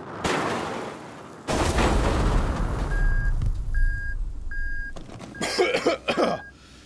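Sound effects of a spaceship crash-landing: a long, loud rumbling crash, then a short electronic warning beep repeating a little faster than once a second. A character coughs through the beeping near the end.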